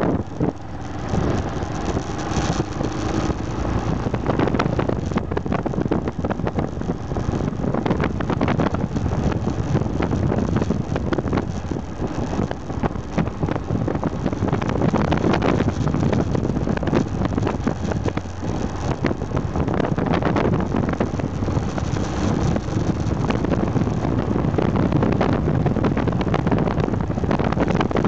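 Aprilia Pegaso 650 Strada's single-cylinder engine running as the motorcycle rides along, mixed with wind buffeting the microphone.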